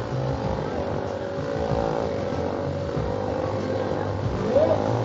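Stunt motorcycle engines running at steady high revs, with a quick rise and fall in pitch near the end.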